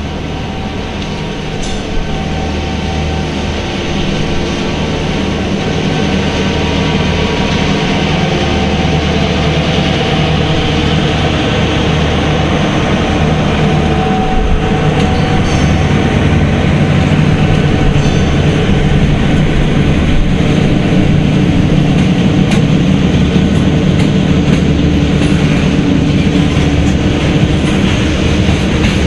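Norfolk Southern diesel freight train passing: the locomotives' engines run steadily as they approach and go by, and the sound grows gradually louder as the train of covered hopper cars rolls past.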